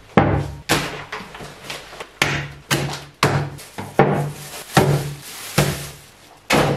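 Shopping being unpacked onto a kitchen table: a string of irregular knocks and thuds as a bottle, a glass and packets are set down, with rustling of plastic carrier bags.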